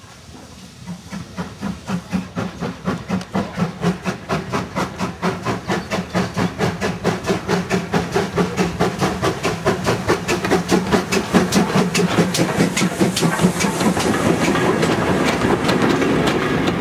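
Steam locomotive pulling away with a train, its exhaust beats coming quicker and louder as it accelerates towards and past the listener, over a steady hiss of steam. Near the end the carriage wheels click over the rail joints as the coaches go by.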